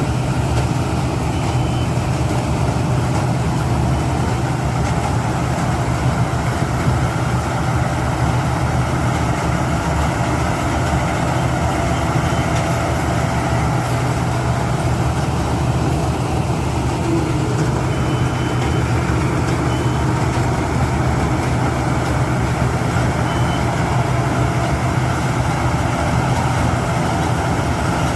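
Rice combine harvester engine running steadily under a constant, loud drone. A few short, high-pitched beeps come through now and then.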